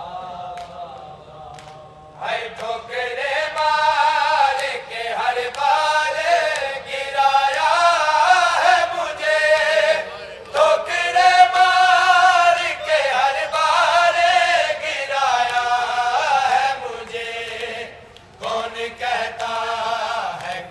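Men's voices chanting a noha, a Shia Urdu lament, in long, wavering sung lines, with short breaks for breath about halfway through and again near the end.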